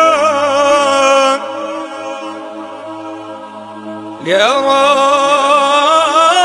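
Unaccompanied male voice singing an Islamic tawshih (devotional chant) in long melismatic phrases with vibrato. A held, ornamented note ends about a second and a half in, the sound falls quieter, and about four seconds in the voice slides up into a new ornamented phrase.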